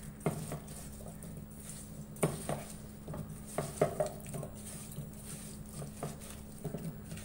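Raw potato fingers in a yogurt and cornflour marinade being mixed by hand in a stainless steel bowl: irregular wet squishes and clacks of the pieces against the metal, over a faint steady hum.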